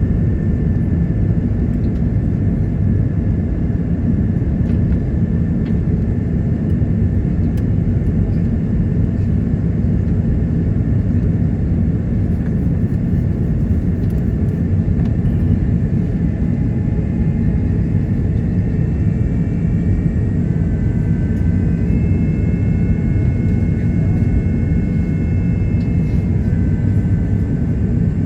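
Airbus A330-900neo in flight on approach, heard from the passenger cabin: a steady, even rumble of engine and airflow noise. In the latter part, faint steady whining tones join it.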